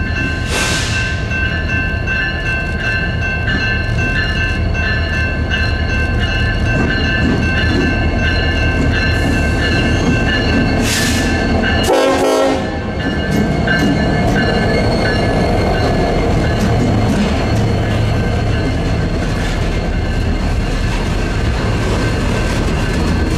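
Norfolk Southern SD70-series diesel locomotive in street running, its horn sounding almost without a break over the engine's low rumble. There is a brief break about halfway through.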